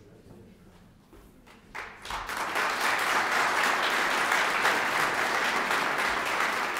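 Audience applause: a few scattered claps, then full clapping that breaks out about two seconds in and keeps going steadily.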